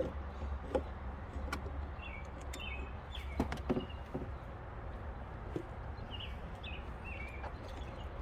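Small birds chirping in short falling calls over a low steady hum. A few sharp clicks and knocks are mixed in, the loudest pair about three and a half seconds in.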